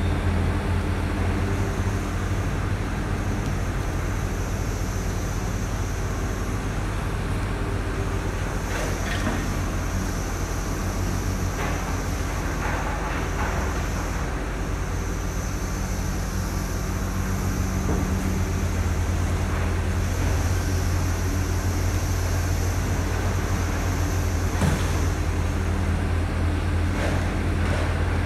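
Truck engine idling steadily, heard from inside the cab, with a few faint knocks scattered through.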